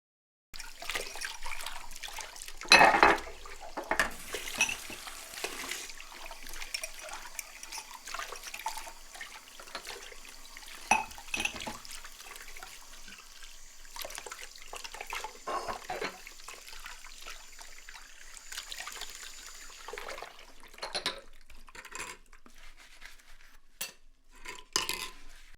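Water splashing and running, with irregular clatters and knocks throughout.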